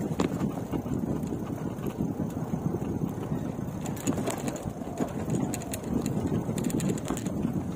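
Fat-tyre mountain bike rolling over a rough dirt track, with wind rushing over the microphone. Scattered clicks and rattles from the bike come in the second half.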